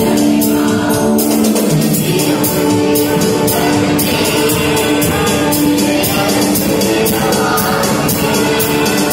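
Mixed choir singing a Tamil Christian song in unison over keyboard accompaniment with a steady percussion beat.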